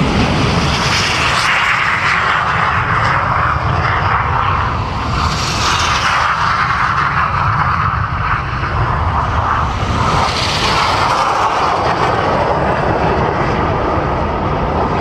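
Red Arrows BAE Hawk T1 jets at full power on their formation take-off: loud, continuous jet engine noise that swells about three times as aircraft pass.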